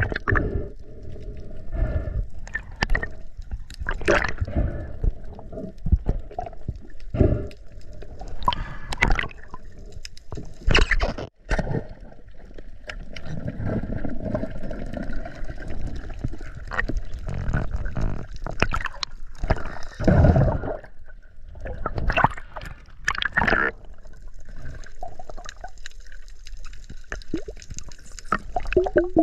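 Sea water sloshing and gurgling around a GoPro in its waterproof housing, with irregular splashes and bubbling.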